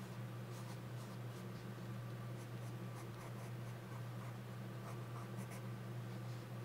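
Graphite pencil scratching on paper in short strokes as it draws small circles, over a steady low hum.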